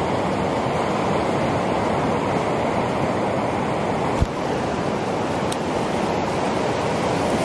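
Ocean surf breaking on a sandy beach: a steady wash of noise, with a short click about four seconds in.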